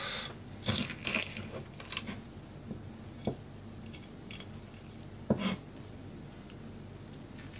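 Kitchen knife cutting and gutting small sandfish (hatahata) on a plastic cutting board. Scattered wet squishes and light knife taps, the sharpest about five seconds in.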